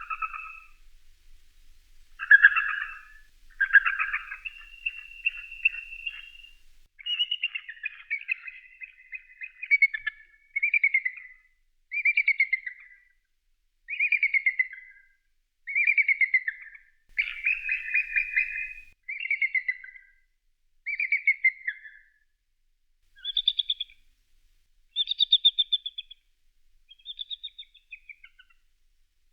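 Bald eagle calling: series of high, rapid piping chirps, repeated about every two seconds, each call sliding slightly down in pitch.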